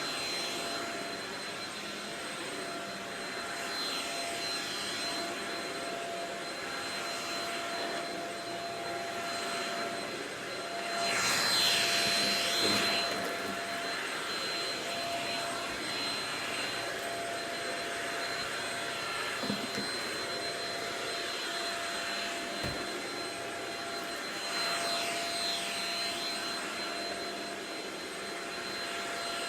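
Shark Rocket stick vacuum running with a steady motor whine over the rush of air, swelling louder three times as it is pushed over the floor, most strongly a little before halfway through. One short knock comes about three quarters of the way through.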